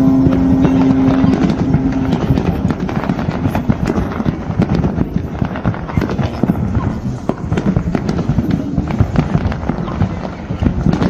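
Fireworks going off in a dense, continuous run of cracks and bangs, with voices in the crowd. A long steady tone ends about two seconds in.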